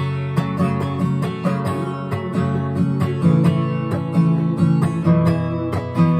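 Acoustic guitar strummed in a steady rhythm, with no singing.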